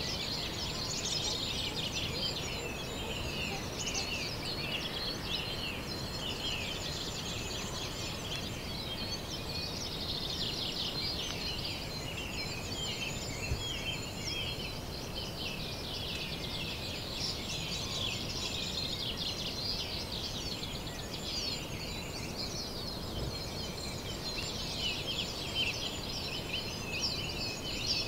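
A chorus of many small songbirds singing and calling at once: dense overlapping chirps and trills with no pause, over a low steady background hiss.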